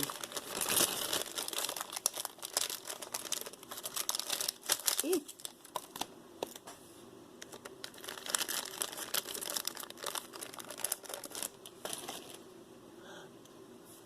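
Plastic bags crinkling and rustling as they are handled, with many small irregular clicks; it quiets near the end.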